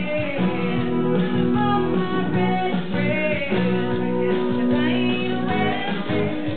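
A woman singing into a handheld microphone, holding long notes, over a guitar accompaniment.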